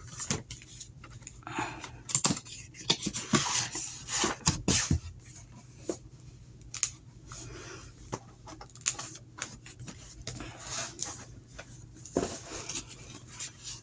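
A cardboard product box being opened and its packaging handled, heard as irregular rustling and scraping with scattered clicks and knocks.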